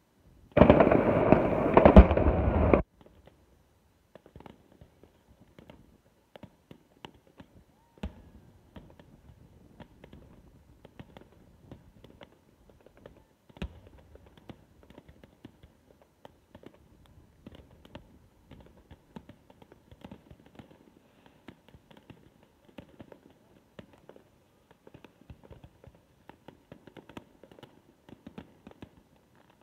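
Fireworks display: a loud, dense rush of noise starts about half a second in and lasts about two seconds. Then come faint scattered pops and crackles, with two sharper bangs about 8 and 14 seconds in.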